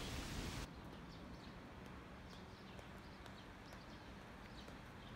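Quiet outdoor background with a string of faint, light, evenly spaced clicks.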